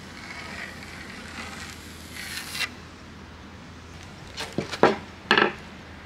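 Pencil scratching along a wooden plank as a line is marked, growing brighter and stopping abruptly about two and a half seconds in. Near the end come four sharp knocks, the loudest sounds here.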